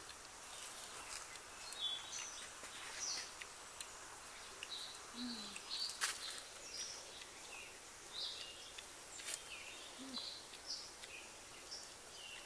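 Birds chirping in short, scattered high calls over a steady outdoor hiss, with a few sharp clicks.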